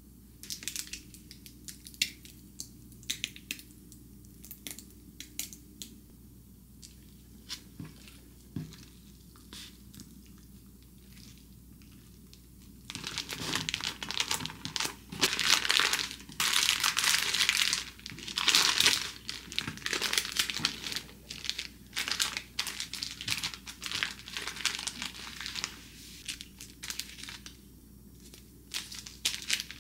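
Scattered light taps and clicks. Then, from a little under halfway through, brown baking paper crinkles and rustles loudly and almost continuously as a filled wrap is rolled up tightly in it.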